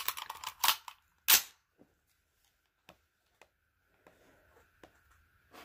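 A single sharp rifle report from an AR-15-style rifle chambered in 7.62x39, about a second in and the loudest sound, after a brief burst of crackling strokes; a few faint clicks follow.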